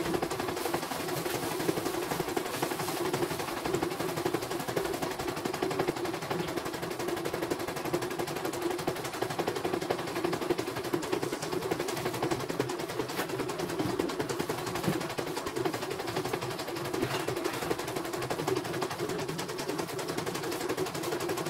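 CNY portable computerized embroidery machine stitching a design: a rapid, even clatter of needle strokes over a steady motor hum.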